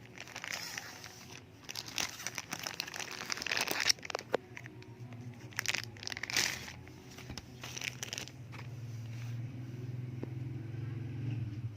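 Packaging being handled, crinkling and rustling in irregular bursts for about the first eight seconds. After that a steady low hum grows and carries on.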